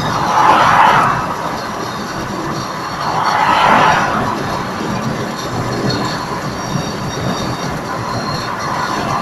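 Tyre and wind noise of a car at motorway speed, heard from inside the cabin. Two louder swells, about half a second in and about three and a half seconds in, as traffic passes close by.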